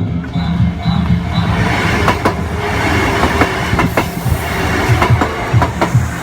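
Japanese festival percussion: a drum beating a fast, steady rhythm with sharp clanking strikes, over a dense wash of crowd noise.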